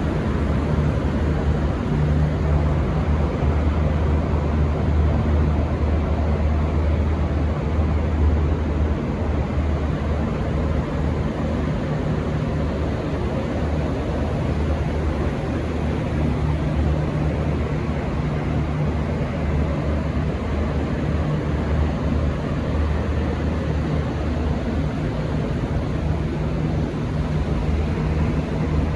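Diesel train engines running with a steady low rumble and hum, and no change in pitch or level.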